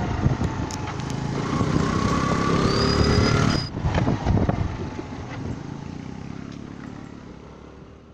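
A road vehicle on the move: engine and road noise, with a faint whine rising in pitch over the first few seconds. The sound then fades away steadily toward the end.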